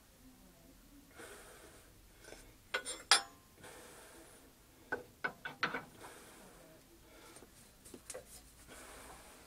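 Metal tools and parts being handled: a few sharp metallic clinks and knocks, the loudest pair about three seconds in and a quick cluster around five to six seconds, with light rubbing and ticking between.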